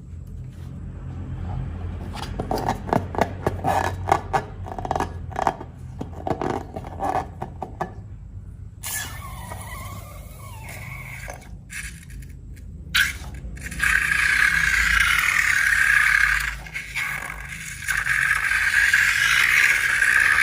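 Slime and balloons being handled during slime-making: a quick run of sticky clicks and crackles, then a steady scraping hiss that grows louder about two-thirds of the way through.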